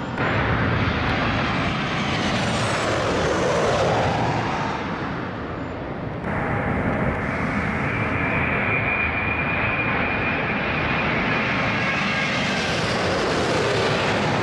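Jet airliners' turbofan engines on low landing approach. At first a passing jet recedes, its whine falling in pitch over its rumble. About six seconds in the sound switches abruptly to the next airliner approaching, with a steady high fan whine that builds as it comes overhead.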